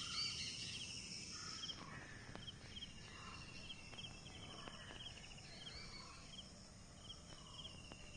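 Birds calling in open farmland: many short chirps and trills repeating throughout, with a louder pair of calls at the very start, over a steady low background noise.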